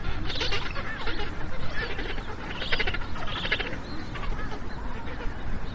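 Magellanic penguins calling: several short, harsh pulsed calls, over a steady low background noise.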